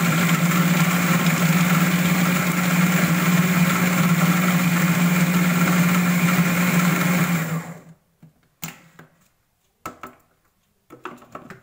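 Electric food processor running steadily as it chops onion, tomato and green chillies, stopping about eight seconds in. A few short plastic clicks and knocks follow as the lid is worked off the bowl.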